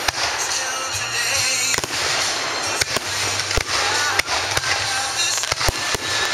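Aerial fireworks shells bursting overhead: about a dozen sharp bangs, roughly two a second, over a continuous crackling hiss. The loudest reports come in the second half.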